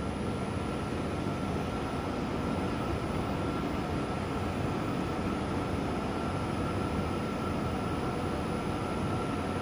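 Wave soldering machine running: a steady mechanical hum and hiss with one constant high whine, as the electric solder pot is driven along its chain track.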